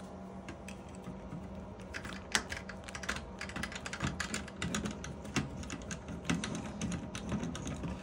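Quick, irregular small clicks and rattles of a hand tool and wires being worked inside a sheet-metal HVAC control box, over a steady low hum.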